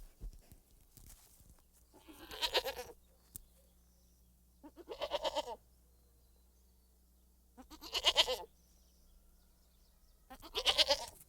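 Goat bleating: four quavering 'maa' calls of about a second each, spaced roughly three seconds apart, over a faint low hum.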